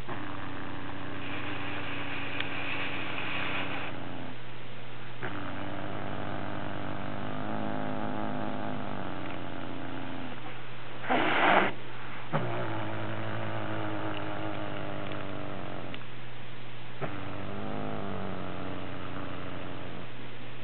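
Domestic cat growling low and long, its mouth full of a freshly killed jay: a warning growl to guard its prey. It comes in several drawn-out growls with short breaks, and a louder, harsher outburst about eleven seconds in.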